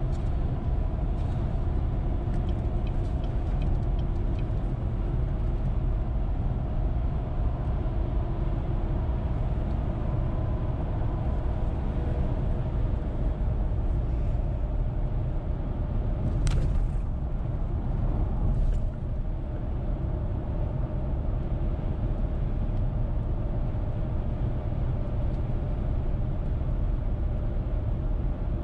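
Steady road noise of a car driving at highway speed: a low rumble of tyres and engine with a faint steady hum above it. A sharp tick about sixteen seconds in, and a fainter one a couple of seconds later.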